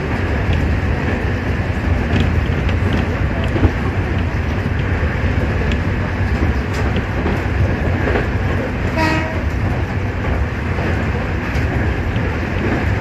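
Nankai 2000 series electric train running at speed, a steady rumble of wheels on rail with light clicks from the rail joints. A brief pitched tone sounds about nine seconds in.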